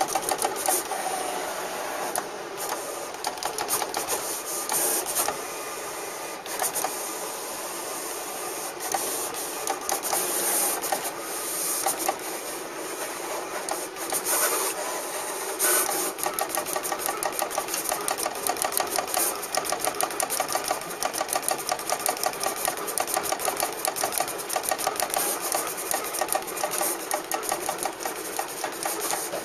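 Graphtec CE-5000 cutting plotter at work, its motors driving the tool carriage and paper back and forth with a fast, even rattle.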